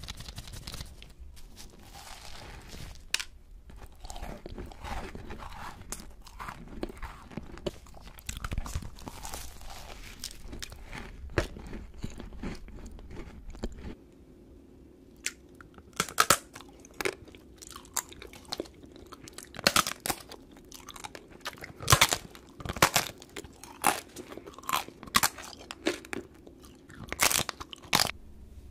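Close-up eating sounds: crunching and chewing of a cream-filled macaron. About halfway through, after a cut, they change to sticky, wet chewing with sharp smacks and clicks as a chewy red candy sheet is bitten and chewed.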